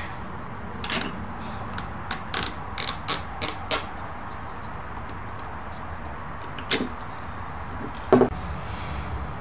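Metal parts of a Bogen tripod head clicking and knocking as they are worked by hand and with a small tool: a quick run of sharp clicks in the first few seconds, then two more, the last one the loudest, near the end.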